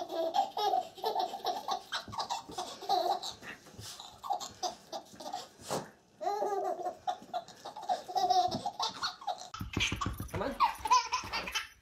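A baby laughing in repeated bouts of high-pitched giggles, with a brief break around six seconds in. Near the end, after a cut, another baby laughs over a low rumble of handling noise.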